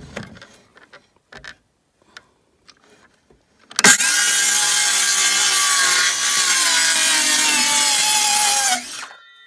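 DeWalt circular saw cutting through a sheet of OSB: it starts suddenly about four seconds in, runs for about five seconds with a whine that slowly drops in pitch as the blade works through the board, then stops abruptly. A few light clicks of the saw being handled come before the cut.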